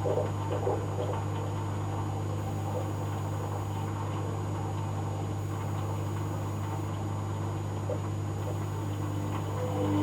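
Hoover Dynamic Next washing machine in its rinse stage, water running through the machine over a steady low hum.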